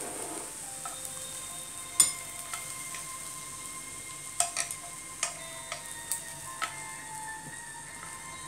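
Prawns still sizzling in their soy and sugar sauce in a frying pan as they are lifted out onto a ceramic plate, with a steady hiss and about eight sharp clinks of the utensil against the pan and plate, a cluster of them near the middle.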